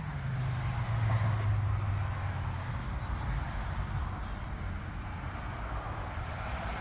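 Steady low mechanical hum, like a running engine or passing traffic, with faint short high chirps repeating about every second and a half.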